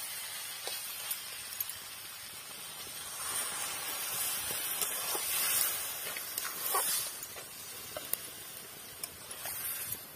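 Curry sizzling and steaming in a metal kadai over a wood fire, a steady hiss, with a metal spatula stirring and scraping against the pan, giving scattered light clicks.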